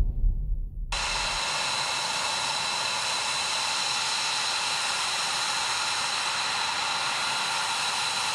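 F-22 Raptor's twin Pratt & Whitney F119 turbofan engines running steadily at taxi power: an even rushing hiss with high, steady turbine whine tones, starting about a second in as music fades out.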